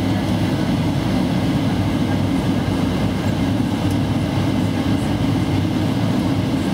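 Passenger aircraft cabin noise: a steady low rumble of engines and airflow heard from inside the cabin.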